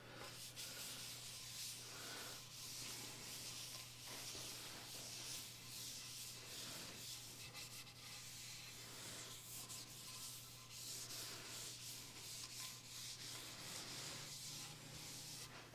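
Cloth rubbing finishing oil into a hardwood cutting board: faint, repeated wiping strokes, over a steady low hum.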